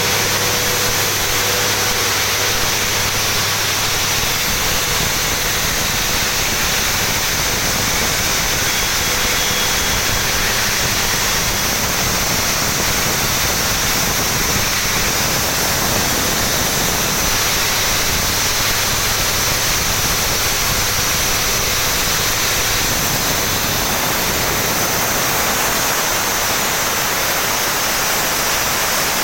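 Steam turbine and boiler plant running: a loud, steady roar and hiss with no breaks. A faint low hum under it fades out about four seconds in.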